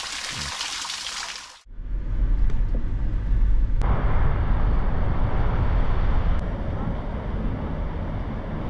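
Water rushing for about the first second and a half, then a sudden cut to a loud, steady low rumble with a hiss above it, like a car driving on the road.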